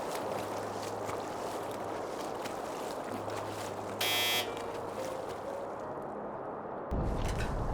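Wind blowing over the microphone with a steady rushing hiss, and a short high-pitched tone about four seconds in. Near the end a stronger gust sets in, buffeting the microphone with a low rumble.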